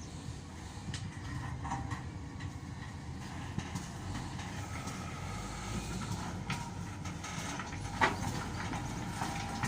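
SDLG wheel loader running at work, a steady low diesel rumble with scattered clanks and one sharp knock about eight seconds in.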